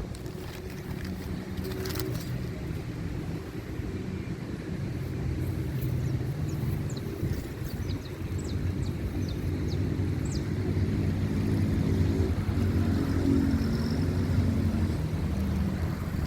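A motor engine running steadily, its pitch drifting slowly up and down, with a few short high chirps partway through.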